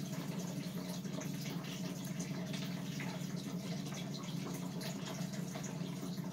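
Steady hum and airy rush of an electric box fan running, with faint light clicks of small metal parts and screws being handled on a plastic RC-car chassis.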